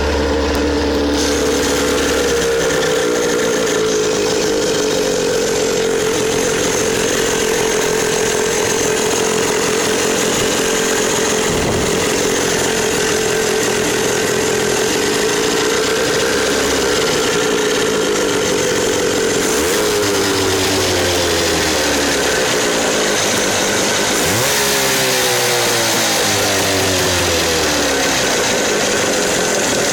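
A boat's small engine running steadily at a high, buzzing pitch, with its pitch sagging and recovering several times in the second half.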